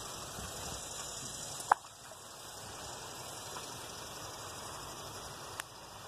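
Steady hiss of a creek's flowing water, with a single sharp click about two seconds in and a fainter one near the end.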